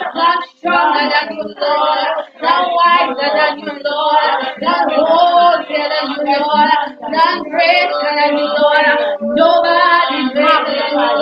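Women singing a gospel praise and worship song, in phrases with brief breaths between them and a few longer held notes in the second half.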